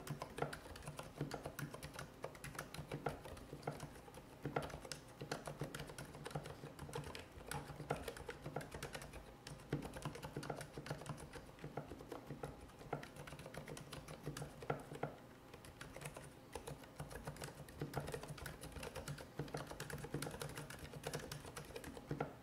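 Varmilo VA87M tenkeyless mechanical keyboard with silent red linear switches being typed on steadily: a continuous run of quick, overlapping keystrokes.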